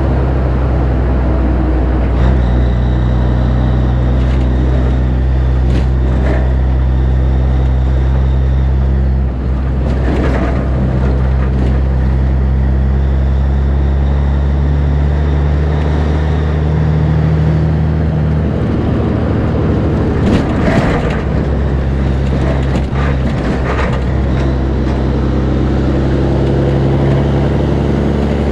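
Diesel engine of a Peterbilt 362 cabover semi truck running steadily while driving, its pitch changing a few times. A few brief rushing sounds come through around the middle and later on.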